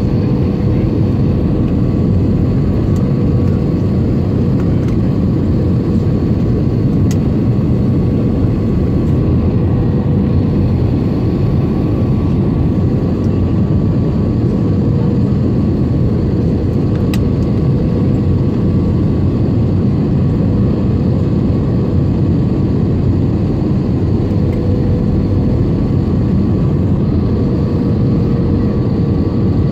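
Jet airliner cabin noise on final approach: steady engine and airflow noise heard from a seat over the wing, with a faint steady hum on top.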